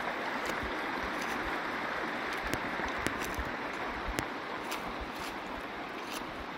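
Shallow creek running over flat rock ledges and small riffles: a steady rushing of water, with a few faint clicks.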